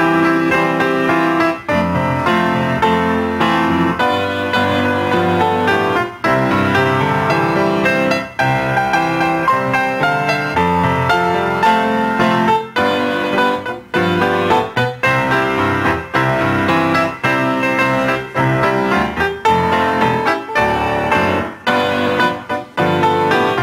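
Offertory music played on piano or electric keyboard: a steady flow of chords and melody notes.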